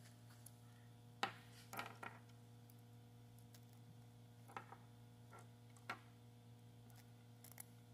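Near silence with a steady low hum, broken by about half a dozen light clicks of small steel bolts and washers being handled and set down on a wooden bench.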